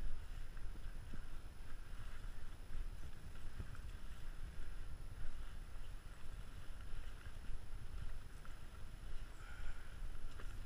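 Wind and handling rumble on a walking hiker's body-worn camera microphone, with the hiker's footsteps on the dirt trail.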